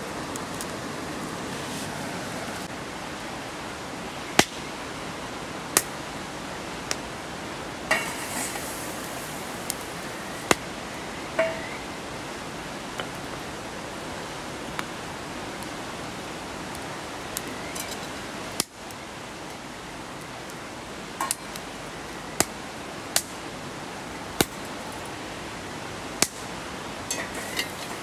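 Steady hiss of rain, with a dozen or so sharp knocks and clinks at irregular moments, a few of them ringing briefly like metal or glass.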